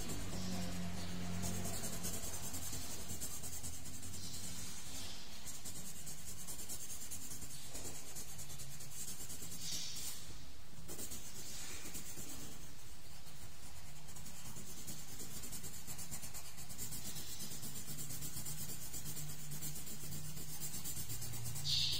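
Colored pencil rubbing across paper in scratchy shading strokes, with a louder scrape near the end.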